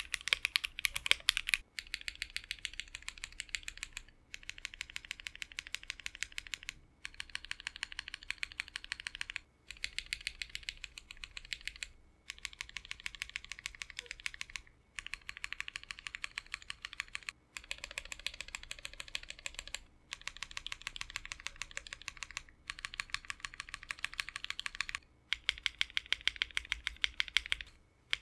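A 60% custom mechanical keyboard with an FR4 plate, a gummy O-ring mount and JWK Black linear switches is typed on fast in runs of about two and a half seconds, with brief pauses between them. For about the first second and a half it sits on stiff 65A O-rings and sounds louder and brighter. The rest is on the stock 50A O-rings.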